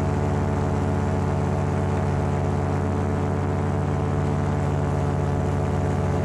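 Paramotor engine running steadily at constant throttle in flight, a continuous drone with no change in pitch.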